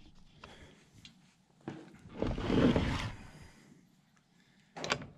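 Hand tools working the bar nuts on a Stihl chainsaw's side cover: a few light clicks, then a rough sliding rattle of metal lasting about a second, about two seconds in, and a few sharp clicks near the end.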